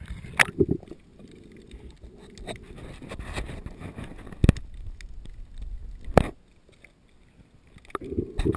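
Water sloshing and rushing around a handheld camera at and just under the sea surface while a snorkeler swims, with a few sharp clicks or knocks on the camera, the loudest near the middle and about six seconds in.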